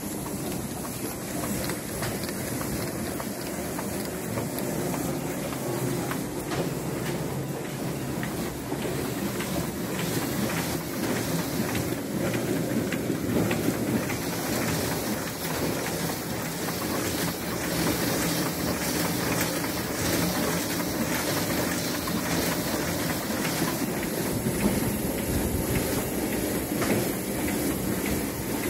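Sheet-fed offset printing press running steadily, a continuous mechanical clatter with fast, even clicks from its rollers and sheet feed.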